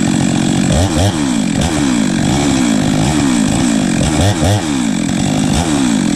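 Chainsaw running at throttle while finishing a cut through a tree trunk, its pitch repeatedly dipping and climbing back as the bar takes and sheds load.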